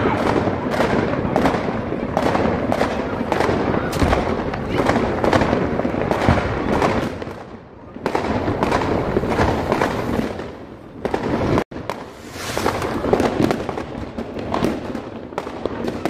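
Many fireworks going off at once: a rapid, unbroken string of bangs and crackles, easing off for a moment about halfway through and cutting out for an instant a little later.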